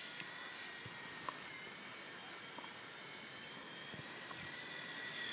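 V911 fixed-pitch RC helicopter flying at a distance: a thin, steady high motor whine under a steady high hiss.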